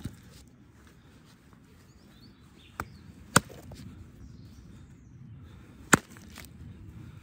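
Wooden baton striking the spine of a Fallkniven S1 knife, driving the blade through a thick dry branch: four sharp wooden knocks at uneven intervals, the two loudest a little past the middle and near the end.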